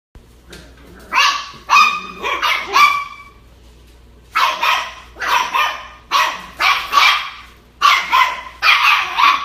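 Puppies barking in short, high-pitched barks. A quick run of barks comes first, then a pause of about a second, then a steadier string of barks at about two a second.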